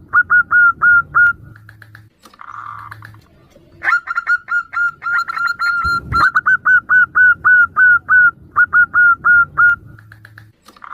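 Zebra doves calling back and forth: runs of short, clipped cooing notes repeated about three to four times a second. About two and a half seconds in there is a brief pause and a short buzzy call before the runs start again. A brief knock comes about six seconds in.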